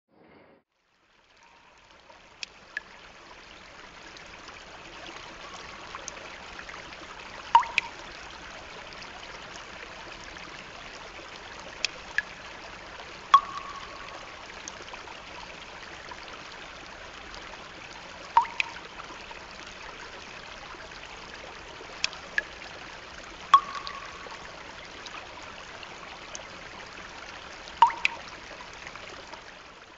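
Steady sound of trickling, running water, fading in over the first few seconds. Pairs of short, sharp sounds stand out above it about every five seconds.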